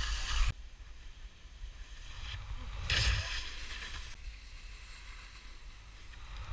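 Skis sliding and scraping over packed snow on a downhill run, with wind rushing over the camera microphone. The rush is loud at first and drops sharply after half a second. A louder hissing scrape comes about three seconds in.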